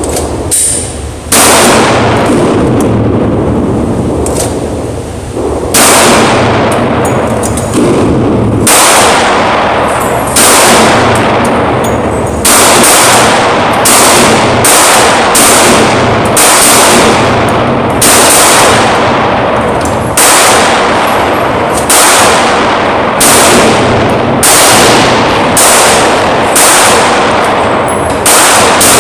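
Glock 20 10mm pistol fired in a steady string of single shots, about one every second or so and quicker toward the end. Each shot trails off in a long echo.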